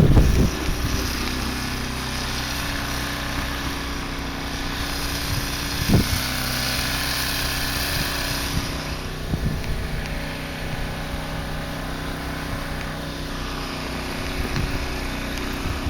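Small snowblower engine running steadily. A rush of hiss swells in the middle, and there is a brief thump about six seconds in.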